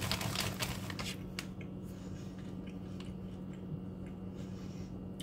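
A person chewing a mouthful of light, crispy puffed snack, with sharp crunches in the first second or so, then quieter chewing.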